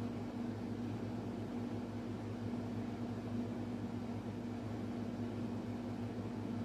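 Steady low mechanical hum with an even hiss, like a running fan or motor, with no distinct strokes or clicks.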